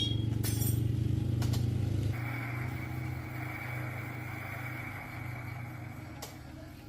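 Electric bicycle's motor running: a steady low hum for the first two seconds, then a steady high whine that slowly fades, with a few light clicks.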